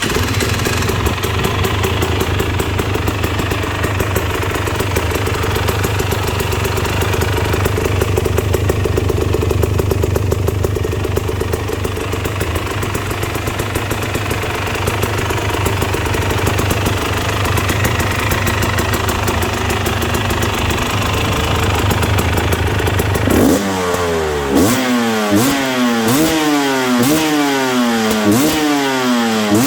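Husqvarna TE 300i's single-cylinder two-stroke engine running through an aftermarket exhaust, holding a steady fast idle. Near the end it is revved up and down repeatedly, about one blip a second.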